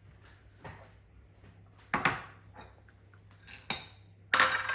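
A few separate clinks and knocks of kitchen utensils and dishes as almonds are readied for crushing, the loudest about two seconds in. A louder, busier run of sound starts near the end.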